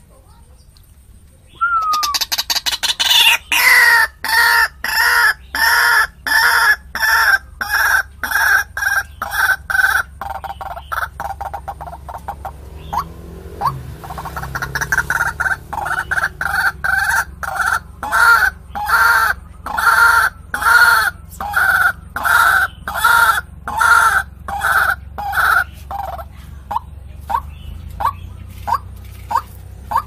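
White-breasted waterhen (ruak-ruak) calling: a long series of loud repeated call notes, about two a second, that starts about two seconds in and eases briefly around the middle. Near the end it gives way to short rising notes.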